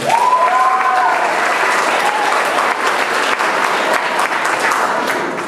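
Audience applauding for a student called up to receive a certificate. A voice calls out over the clapping during the first second, and the applause eases off near the end.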